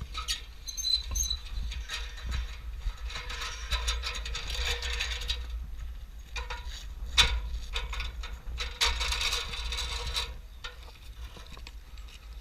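A ladder being worked loose and shifted: rattling, scraping and clicking in two long stretches, with a single sharp clank about seven seconds in.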